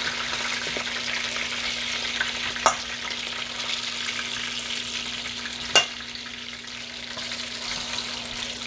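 Oil sizzling and frying in a cast-iron skillet as browned oxtail pieces are lifted out with a fork. Two sharp metal clinks of the fork, about three and six seconds in.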